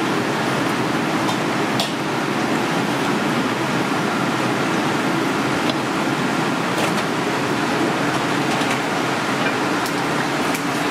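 Steady rushing background noise with a few faint ticks of a cleaver against a bamboo cutting board as fish fillets are sliced.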